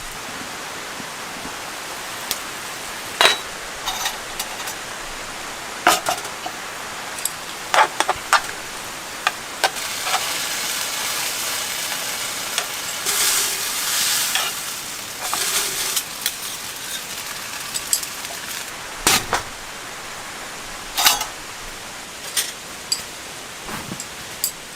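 Steady rain hiss with irregular sharp ticks and pops of drops striking a surface, swelling louder for a couple of seconds midway.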